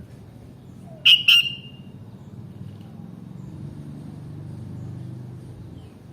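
Sooty-headed bulbul giving two short, sharp calls in quick succession about a second in, over a steady low rumble of road traffic.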